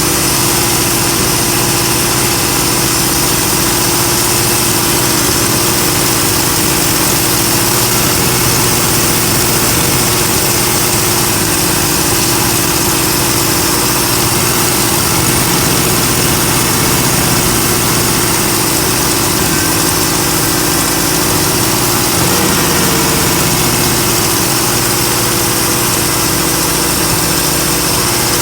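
Engine idling steadily with a steady hiss above the engine note. The owner suspects an intake vacuum leak.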